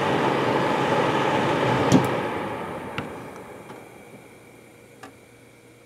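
Dynotrap XL insect trap's fan running with a steady whir, switched off with a click about two seconds in. The fan then slowly winds down, fading over the next few seconds, with a couple of light ticks.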